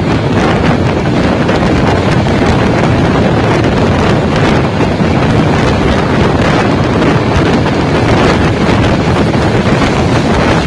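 Steady, loud wind buffeting the microphone held out of the window of a moving passenger train, over the train's running noise.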